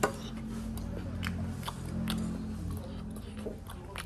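Someone chewing a mouthful of omelette close to the microphone, with scattered light clicks of the fork and mouth.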